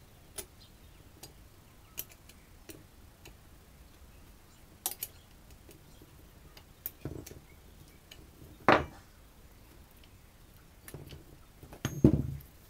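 Irregular light metallic clicks and ticks as rotary compressor pump parts are adjusted by hand, with a sharp louder knock about two-thirds of the way through and a heavier clunk near the end.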